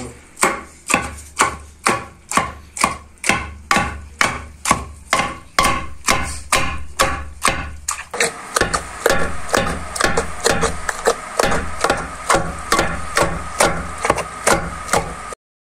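Long wooden pestle (ulakkai) pounding a minced meat, onion, ginger and garlic mixture in a mortar (ural), grinding it to a fine paste for kola urundai. It makes steady, heavy thuds a little over two a second. After about eight seconds the strokes come quicker and lighter.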